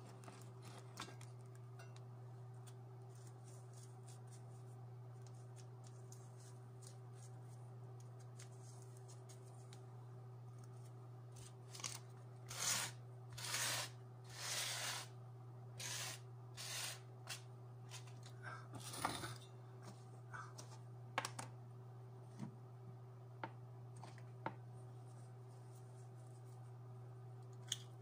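Steady low hum, with a run of short rasping, rustling noises about halfway through from hands handling small objects, then a few scattered clicks.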